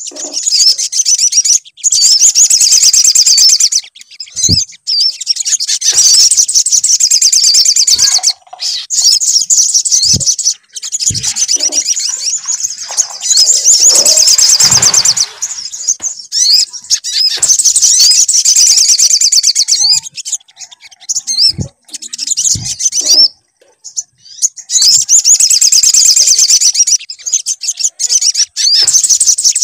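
Sogon (sogok ontong) songbird singing in long runs of rapid, high-pitched chirping trills broken by short pauses, with a few soft low knocks in between.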